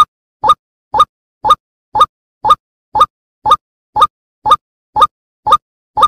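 White-breasted waterhen (ruak-ruak) call played as a bird lure: one short, slightly rising note repeated evenly about twice a second, with dead silence between notes like an edited loop.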